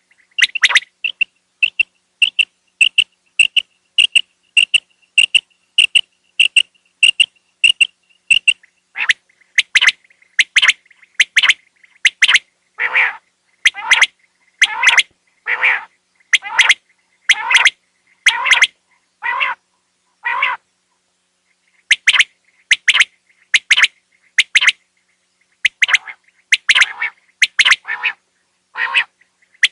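Quail (batair) calling over and over in short, sharp notes, about two to three a second for the first eight seconds, then harsher, fuller calls about one a second. The calls break off for about a second two-thirds of the way through, then carry on.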